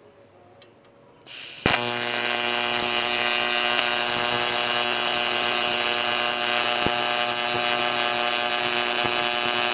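AC TIG welding arc from a Sanjoe TIG200 AC/DC welder filling a hole in aluminium: a steady, even buzz that strikes up about a second and a half in and holds without change.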